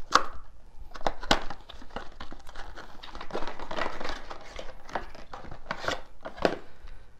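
Small white cardboard box being opened and a black power adapter drawn out of it: cardboard and packaging rustling and crinkling, with a sharp tap near the start and another about a second in.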